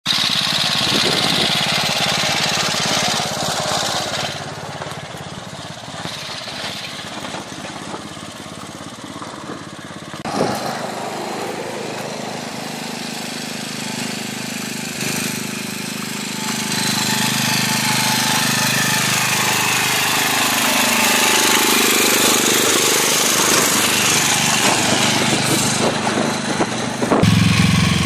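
Single-cylinder engine of a walk-behind tractor running with a rapid, even knocking chug as it pulls a trailer. It is quieter through the middle and louder again near the end.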